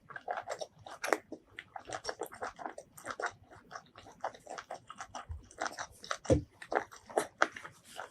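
Close-miked eating: a person chewing and biting food, with an irregular run of wet smacks and clicks and one heavier bite about six seconds in.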